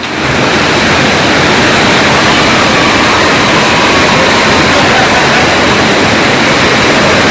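Loud, steady rushing of water, close to the microphone. It rises sharply right at the start and then holds even.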